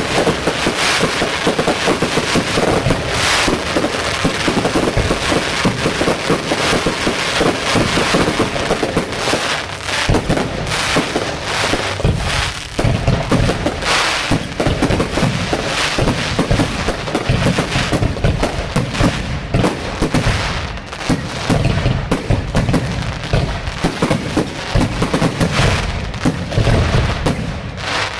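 Fireworks going off in a dense, continuous barrage of bangs and crackling, with heavier low booms from about a third of the way in.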